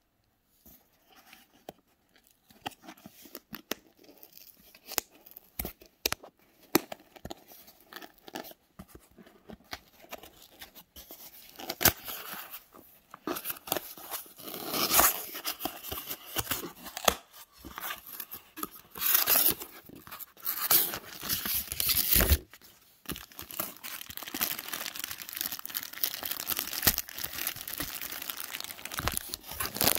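Cardboard shipping box being opened by hand: scattered taps and clicks at first, then from about a third of the way in louder cardboard and paper tearing and rustling, with several sharp rips.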